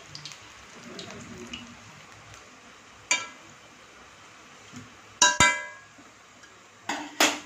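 Medu vadas frying in hot oil with a steady low sizzle, while a metal spatula turns them over, clanking sharply against the kadai several times. The loudest clank, about five seconds in, rings briefly.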